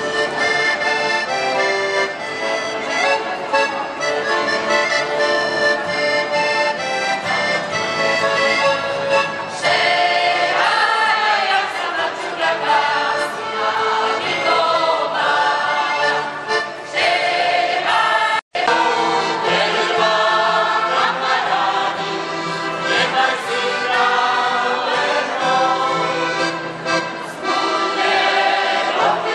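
Accordion playing a folk tune, joined about a third of the way in by a mixed choir of older voices singing along. The sound cuts out for a split second about two-thirds through.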